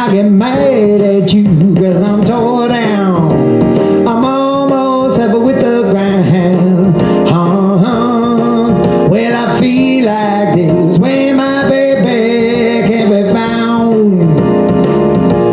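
A man singing a blues vocal line into a microphone over a recorded blues backing track.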